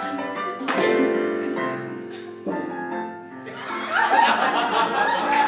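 Digital piano played by several hands at once: a loud chord struck about a second in and another near two and a half seconds, each left to ring. From about three and a half seconds on, women's giggling and laughter sound over the keys.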